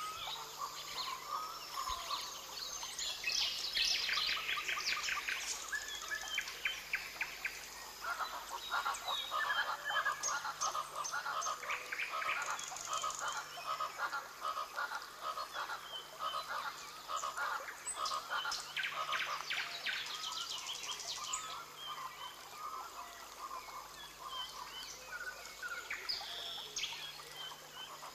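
Rainforest ambience: many birds and frogs calling at once, with rapid high trills coming and going over a steady chorus of lower pulsing calls.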